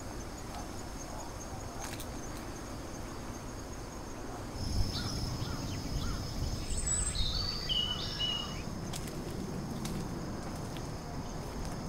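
Steady high-pitched insect chorus, crickets or similar, in the countryside. A low rumble comes in a little before the middle, and a few short high whistled notes sound a little after it.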